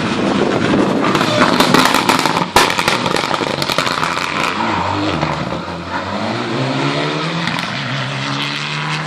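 Rally car passing at speed with its engine at high revs, with sharp crackles and one loud crack about two and a half seconds in. It then drives away, its engine note climbing in steps as it changes up through the gears.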